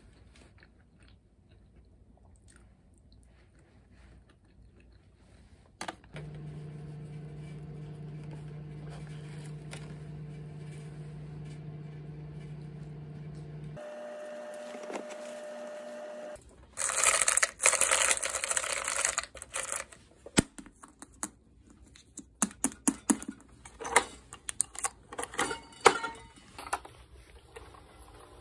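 Household handling sounds: a click, then a machine humming steadily for about eight seconds and changing to a higher tone for about two more, followed by a loud rush of noise lasting about three seconds and a run of sharp clicks and taps.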